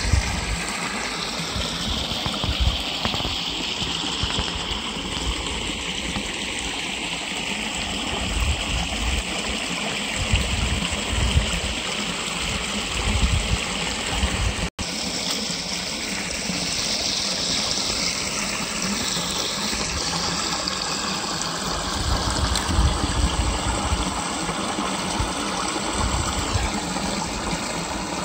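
Water spilling steadily over a small concrete weir into a pool: a continuous rushing splash, with irregular low rumbles under it and one momentary dropout about halfway through.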